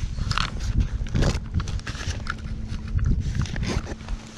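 Wading through shallow lake water: irregular splashy steps with knocks and rustles from handling a float tube and its gear.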